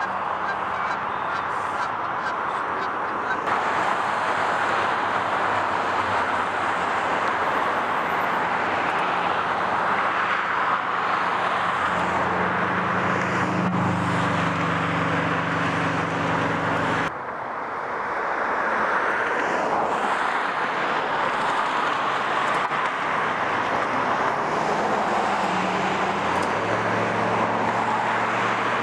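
Steady traffic noise from nearby roads. A vehicle engine's low hum comes in about twelve seconds in and again near the end.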